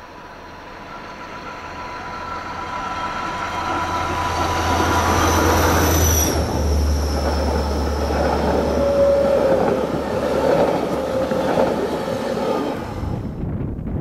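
Passenger train approaching round a curve and passing close by. A low engine hum and wheel rumble build over the first five seconds, with steady high ringing tones from the wheels on the curve. The hum drops as the front passes about six seconds in, then the coaches rumble past until the sound cuts off abruptly near the end.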